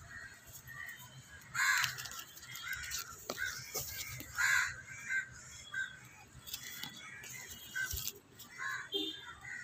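Crows cawing repeatedly, in short harsh calls, the loudest about two seconds in and again around four and a half seconds in.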